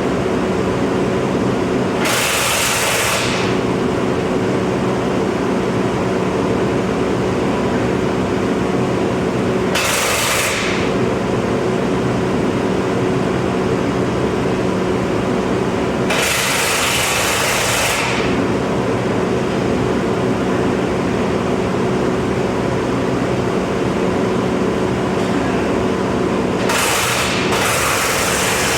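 A heavy-equipment engine running steadily at a constant speed. Four separate bursts of hissing, each one to two seconds long, sound over it.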